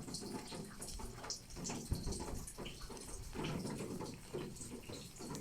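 Rain falling in a garden: many irregular drop ticks over a steady low wash, with a single soft thump about two seconds in.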